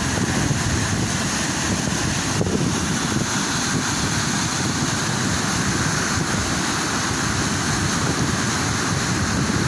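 Muddy floodwater rushing and churning along a concrete-lined canal and tumbling over a concrete drop: a loud, steady rush of water.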